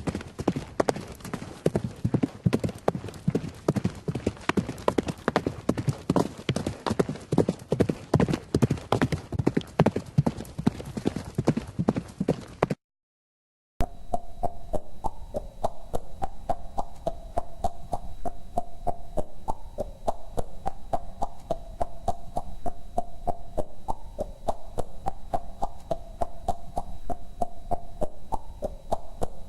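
Horse hooves clip-clopping in a fast, dense rhythm, then a sudden gap of silence about 13 seconds in. After it, a second run of steady hoofbeats begins, with a faint steady hum underneath.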